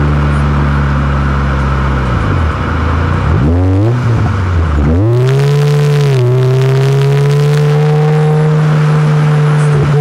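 Honda CR-Z Mugen RZ's 1.5-litre four-cylinder engine and exhaust under way: a steady note, then the revs fall about two seconds in and climb again in two or three steps as the manual gearbox is shifted, settling at a steady, higher pitch from about six seconds on.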